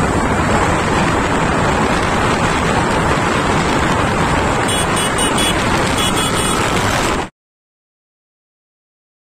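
Riding noise from a Suzuki Gixxer SF motorcycle under way at road speed: steady wind rush over the helmet-mounted microphone with the engine running beneath it. It cuts to complete silence about seven seconds in.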